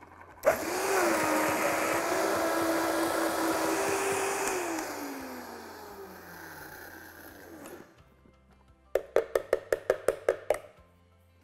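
High-speed countertop blender puréeing hummus with the tamper pushed in through the lid. The motor starts abruptly and runs at a steady high whine for about four seconds, then winds down, its pitch falling as it stops. Near the end comes a quick run of about a dozen knocks.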